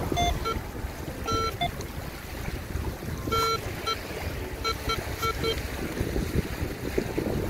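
Metal detector giving short electronic beeps as it passes over a buried metal target in the sand: single beeps, then a quick run of four or five about five seconds in. Wind rumbles on the microphone.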